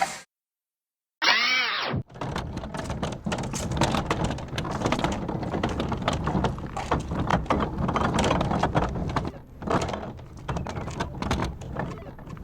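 The Noo-Noo, the Teletubbies' vacuum-cleaner character, making its comic noises: a short gliding squeal about a second in, then a long, busy rattling and sucking noise full of rapid clicks.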